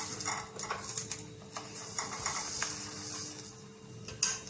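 Spoon scraping and tapping against a stainless steel plate while spreading and levelling thick, sticky halwa, with a sharper click about four seconds in.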